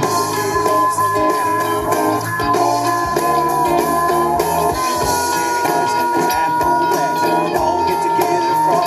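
Live band playing with electric guitars and drum kit, with a long held high note from about five seconds in.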